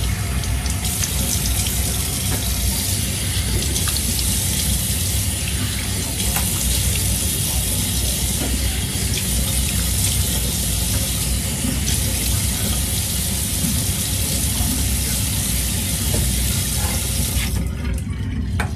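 Tap water running steadily into a bathroom sink, shut off near the end.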